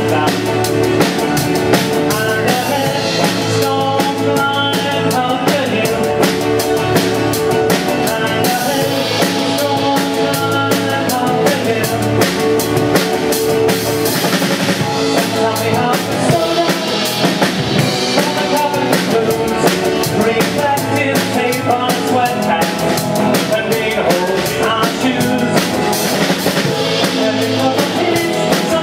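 A live band playing with acoustic guitars, electric bass and a drum kit, the drums keeping a steady beat.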